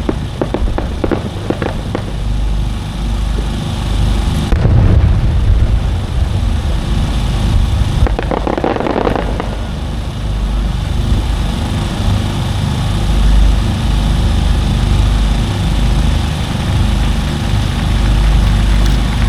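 Aerial fireworks bursting. Dense crackling fills the first two seconds, a burst comes about four and a half seconds in, and a longer crackling burst follows around eight to nine seconds in, all over a steady low rumble.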